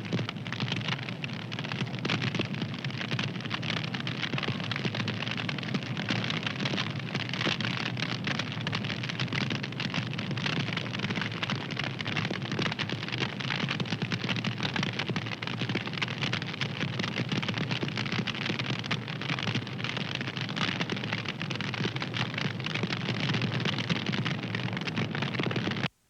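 Fire crackling steadily: a dense stream of small pops and snaps over a low rumble.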